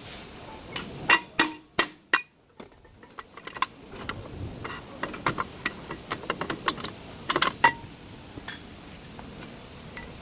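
Metal hand tools and brake parts clinking and knocking against each other during rear brake work: irregular sharp metallic strikes, some ringing briefly, loudest in a cluster about a second in and again near the three-quarter mark.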